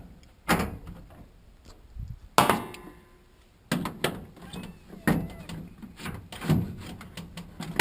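Control-panel cover of a stackable washer-dryer being pushed back onto its latches: a series of knocks and clunks, the loudest about two and a half seconds in.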